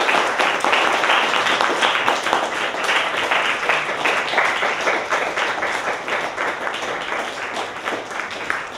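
Audience applauding at the close of a reading: dense, rapid clapping that slowly thins and grows quieter toward the end.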